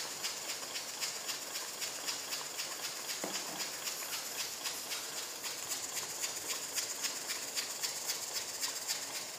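Tomato-onion masala sizzling and bubbling in a nonstick wok, with a steady hiss and rapid small pops and spatters, while it cooks down until the oil separates.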